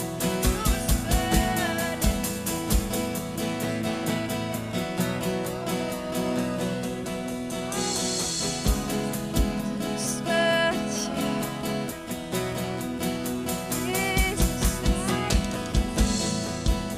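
Instrumental passage of a worship song: band playing with drum kit and guitar. Bass-drum hits come in quick runs near the start and again near the end, with cymbal crashes about halfway and near the end.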